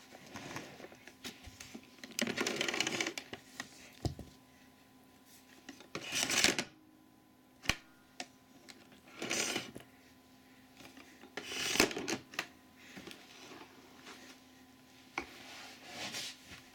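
Hand handling the plastic housing of an AEG UltraOne canister vacuum cleaner, which is not running: several short bursts of rubbing and scraping with scattered plastic clicks.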